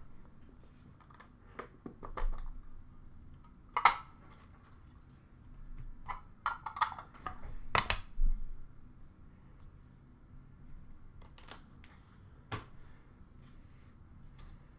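Hands rummaging through a plastic bin of trading-card boxes and packs: scattered clicks, taps and crinkles of plastic and cardboard, the loudest a little past halfway.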